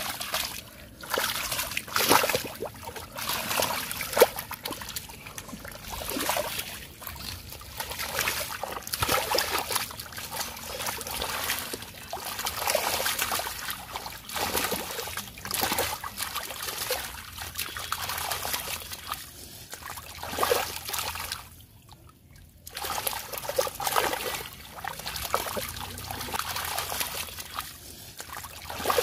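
Shallow muddy pond water splashing and sloshing in irregular bursts as a person sweeps and gropes through it with hands and arms while hand fishing. There is a brief lull about three quarters of the way through.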